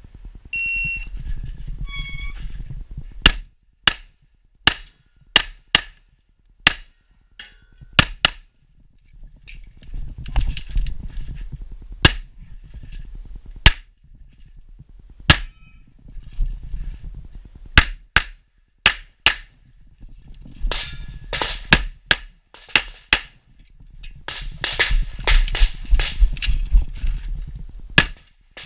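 Competition pistol fire from a 1911-pattern .38 Super single-stack handgun: sharp shots, fired singly and in quick pairs with pauses between strings, then a faster run of shots near the end. A low rumble sits between the strings.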